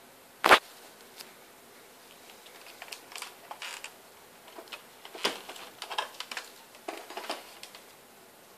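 Handling noise: one sharp knock about half a second in, then irregular light clicks and rattles from about three seconds in until near the end.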